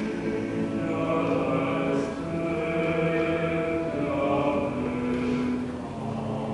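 Mixed choir of men's and women's voices singing held chords in slow, long notes, swelling in the middle of the passage.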